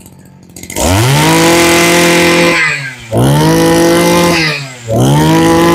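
Makita MEM212L 21 cc brush-cutter engine, quiet at idle at first, then revved three times. Each time it sweeps up to a steady high speed; it drops back after the first two and stays at high speed after the third.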